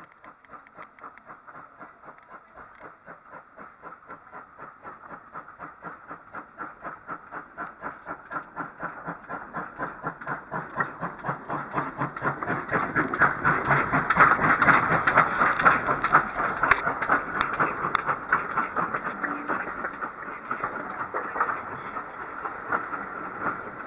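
GWR Collett pannier tank steam locomotive No. 1369 approaching and passing on the adjacent track, with a steady beat that grows louder and peaks about halfway through as it comes alongside. The clickety-clack of its coaches' wheels follows as they go by.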